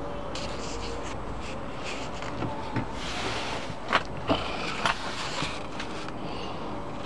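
Steady background noise with a few short clicks and knocks in the middle, about four of them in under three seconds, and a light scrape.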